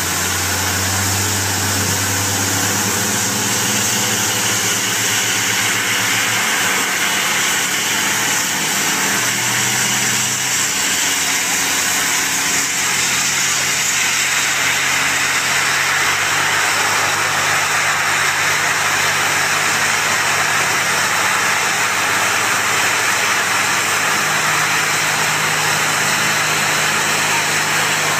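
Fire engine's pump engine running steadily under the loud hiss of high-pressure water jets spraying from fire hoses. The engine note steps up a little over the second half.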